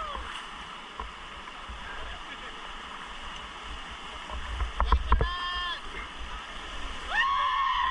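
Raft on river rapids: rushing water hiss with a low rumble, and a few sharp splashes or knocks about five seconds in. Short shouts from the rafters follow the knocks, and more shouting comes near the end.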